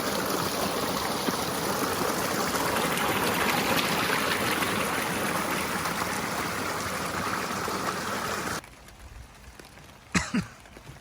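Shallow river water flowing and trickling steadily, cutting off abruptly about eight and a half seconds in. After that it is quiet, apart from a single sharp knock near the end.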